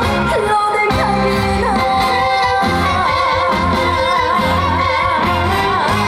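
Woman singing a trot song over an amplified backing track, ending on a long held note with wide vibrato in the second half.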